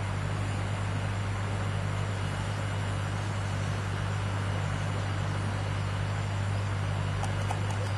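Steady rush of a wide river flowing, with a constant low hum underneath.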